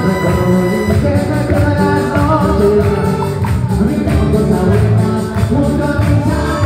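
Latin American dance music played loud over a party sound system, with a steady beat, tambourine-like percussion and a melody.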